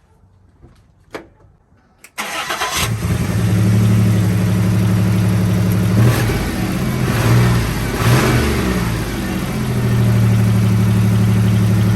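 A 1995 Toyota 4Runner's 3.0 V6 engine starts about two seconds in and idles roughly with a misfire. Its speed wavers up and down through the middle before settling back to a steady idle.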